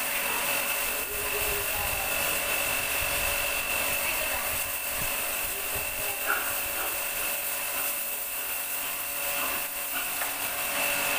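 Pressure washer running steadily, a high whine over the hiss of its water jet spraying onto the pigs and the concrete floor.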